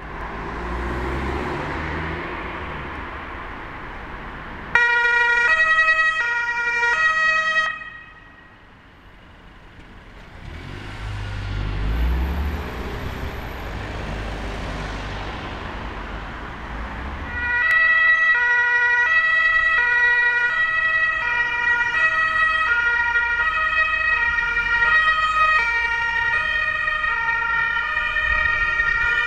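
German emergency vehicles' two-tone sirens (Martinshorn) on call, switching back and forth between two pitches. A short burst starts about five seconds in and stops about three seconds later. A vehicle then passes with engine and tyre noise. From about eighteen seconds, louder sirens sound continuously, with two sets of tones overlapping.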